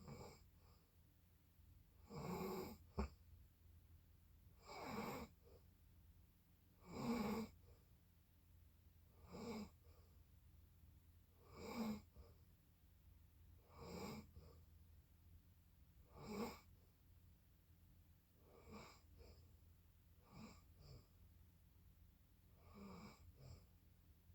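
Snoring in sleep: about ten short snores, one on every breath roughly every two and a half seconds, growing fainter over the last third. There is a brief click about three seconds in.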